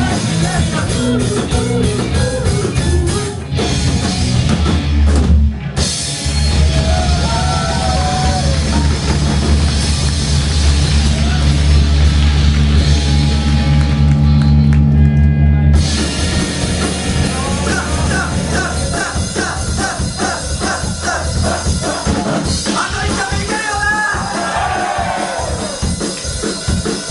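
Rock band playing with drums and a singer. About six seconds in there is a short break, then a dense, held stretch of playing, and about sixteen seconds in the band switches to a choppier, more rhythmic section.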